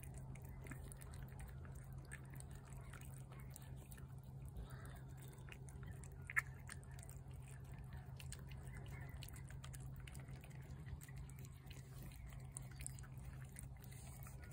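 Domestic cat eating wet food from a plate, with faint, soft chewing and smacking clicks. A steady low hum runs underneath, and one sharp click comes about six seconds in.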